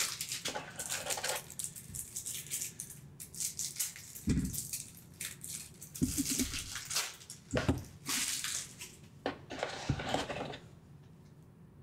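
Plastic shrink-wrap on a small deck of game cards crinkling and rustling in irregular spurts as hands struggle to tear it open, with a few soft thumps on the table. The crinkling dies away near the end.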